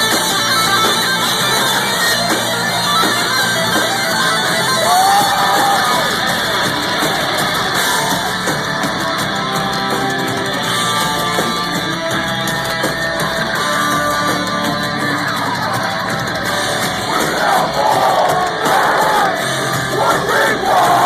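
Live rock band playing loud, with guitar and crowd noise. A voice sings or yells over the music, most strongly in the last few seconds.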